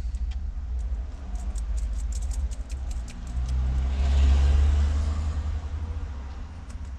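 Low rumble of a passing motor vehicle that swells about four seconds in and then fades. A run of light clicks sounds in the first half.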